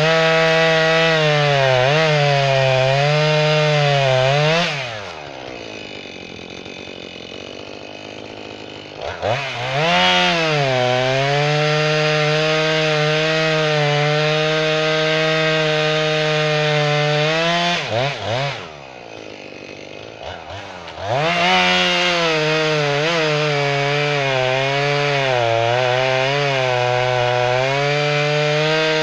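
Jonsered chainsaw cutting red oak at full throttle, its pitch wavering under load. Twice it drops to idle for a few seconds between cuts, then revs back up into the wood.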